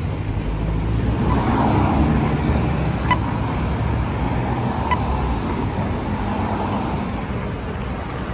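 City road traffic: a steady rumble of passing cars. Two short, sharp ticks sound about three and five seconds in.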